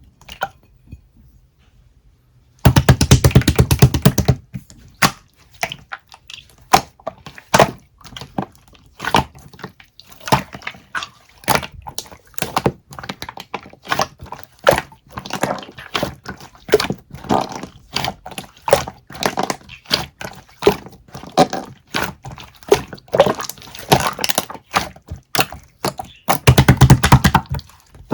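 Irregular knocks and thunks of objects being handled, with a fast rattling burst a few seconds in and another near the end.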